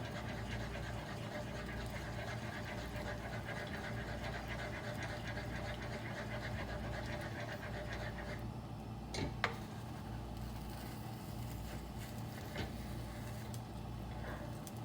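Spoon stirring scrambled eggs in a nonstick pan, a rhythmic scraping that stops about eight seconds in, followed by two light knocks close together and a low steady hum underneath.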